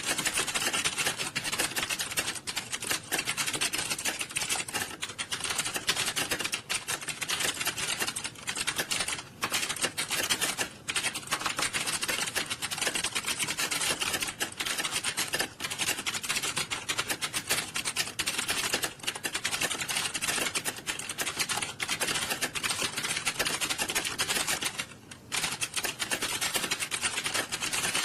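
Many computer keyboards being typed on at once: a dense, continuous clatter of overlapping key clicks from fast typists. The clatter briefly thins out once, near the end.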